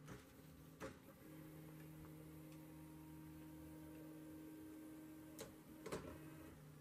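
Original Prusa 3D printer's stepper motors humming faintly and steadily as the print bed moves at the start of a print. A few light clicks come about a second in and twice near the end.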